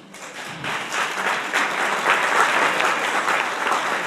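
Audience applauding: many hands clapping, starting just after the speech stops and building up over the first second into steady, dense applause.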